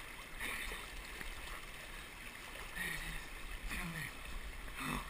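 Creek current rushing and splashing around a swamped kayak pinned against a fallen log, with a few short bursts of splashing.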